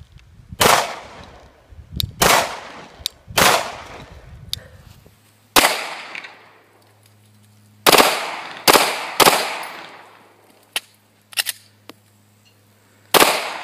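Pistol fired eight times, single shots at uneven spacing, each with a short echoing tail; three come in quick succession a little past the middle.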